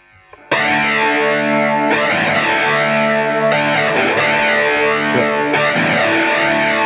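Distorted electric guitar playing the intro of a rock song: it enters suddenly and loud about half a second in, after a faint filtered guitar, holding chords that change every couple of seconds, with an effect sweeping the tone up and down.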